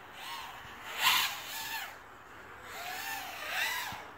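Riot250r FPV racing drone's motors whining, their pitch gliding up and down with throttle. The sound is loudest about a second in, as the drone passes close, and swells again near the end.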